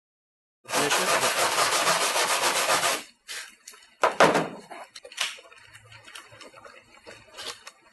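Brass wire brush scrubbing bare aluminum panel in quick back-and-forth strokes for about two seconds, cleaning the spot before a stud pin is welded on. A loud thud follows about four seconds in, then a few light knocks.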